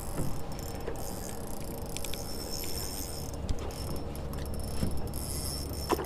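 Spinning reel being cranked as a hooked fish is reeled in, a steady mechanical whirr with a few faint ticks.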